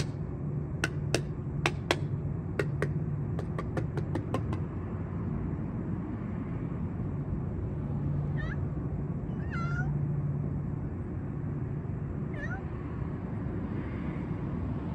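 A feral cat meowing about four times, short calls that slide down in pitch, the loudest about ten seconds in. Before them, in the first few seconds, comes a quick run of sharp clicks, all over a steady low hum.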